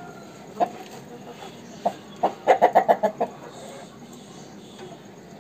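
Aseel rooster clucking: two single clucks, then a quick run of short clucks about two and a half seconds in.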